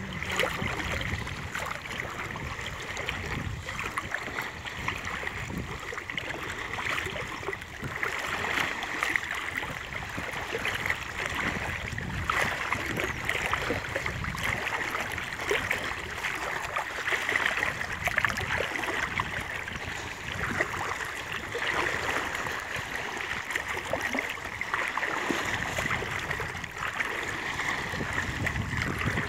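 Shallow water sloshing and splashing around a person's legs as he wades steadily through it, a continuous uneven wash of small splashes.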